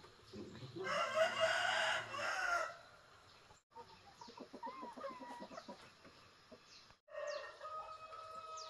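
A rooster crows once, about a second in, the loudest sound here. Softer clucking follows, and a long, steady call comes near the end.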